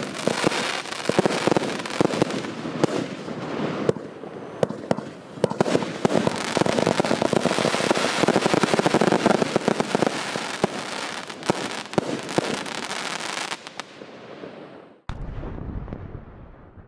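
Wolff 'Insanity' 200-shot compound firework battery firing: a dense stream of bangs and crackling that thins out about fourteen seconds in. About fifteen seconds in a low rumble sets in suddenly and fades away.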